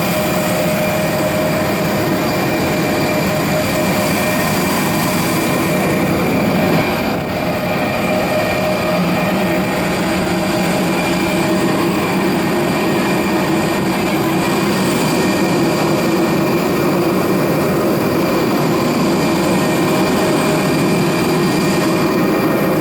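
Airbus A320 cabin noise on the ground before takeoff: a steady rumble with several steady whining tones over it.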